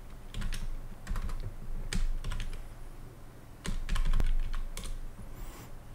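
Computer keyboard typing: scattered keystrokes in short clusters with brief pauses between them.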